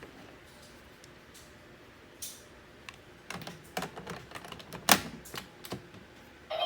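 Hard plastic clicks and knocks from a Kamen Rider Saber toy belt and its Ride Books being handled and fitted together: a few scattered clicks, then a quick cluster with one louder snap in the middle. The toy's electronic sound effect starts right at the end.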